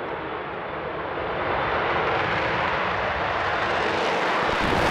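Avro Vulcan bomber's four Rolls-Royce Olympus turbojets at full takeoff power as it lifts off and climbs: a loud rushing jet noise that grows louder about a second and a half in and gets hissier toward the end.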